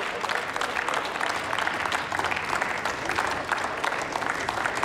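Applause: a group of people clapping steadily.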